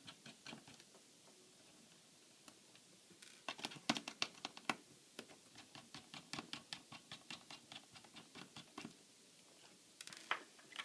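Small screwdriver working a laptop's hinge screws loose: a run of small irregular clicks and scratches of metal on metal, in clusters about three and a half seconds in and again from about six to nine seconds in.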